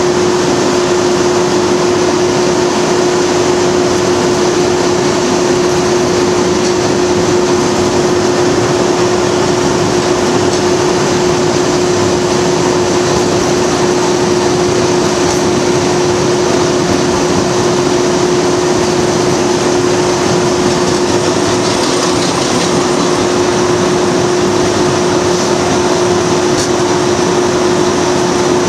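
Class 37 diesel locomotive heard from inside its cab while running along the line: a steady, loud engine and running noise with one constant hum that holds unchanged throughout.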